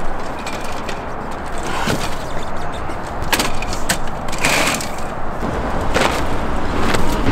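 Knocks and rattles of a folding aluminium table being opened and set up, a handful of sharp taps with a short clatter around the middle. Under them runs a steady low rumble of street traffic.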